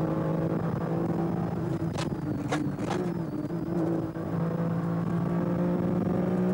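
Rally car engine heard from inside the cabin, running at steady revs at speed on a fast stretch of the stage. Three sharp knocks about two to three seconds in.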